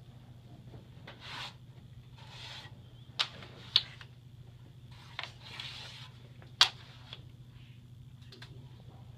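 Lines of metal type being set and shifted by hand on the steel bed of a letterpress: four sharp metal clicks spread over a few seconds, with soft sliding scrapes between them, over a steady low hum.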